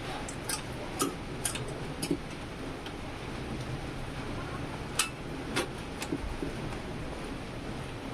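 Scattered sharp clicks and taps, about seven, irregularly spaced and bunched in the first two seconds and again around five to six seconds in, over a steady hiss.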